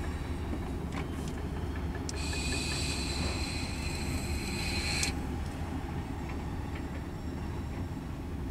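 Freight train of tank cars rolling past with a steady low rumble. About two seconds in a high squeal from the cars' wheels sets in, holds for about three seconds and cuts off suddenly.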